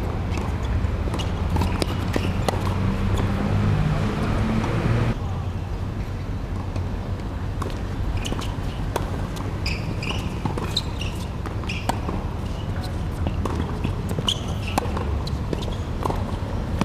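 Tennis ball bouncing on a hard court and struck with rackets in short sharp pops, over a steady low outdoor rumble. The rumble drops abruptly about five seconds in, and a few short high squeaks come later.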